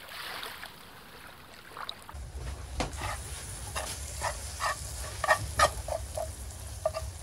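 Utensil clicking and scraping in a cooking pot while soup is being made. The clicks come irregularly, about two a second, from about three seconds in, over a low rumble.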